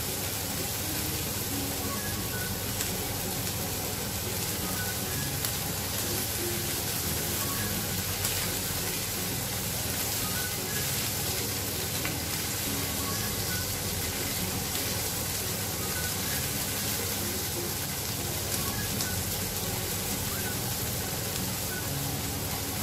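Shrimp frying in oil on a hot sizzling plate: a steady sizzle.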